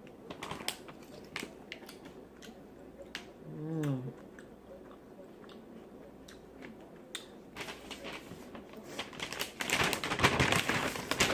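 Close-up eating sounds: wet smacking and clicking from chewing seafood, with a short hummed "mm" about four seconds in. Near the end comes a loud, dense crinkling and rustling.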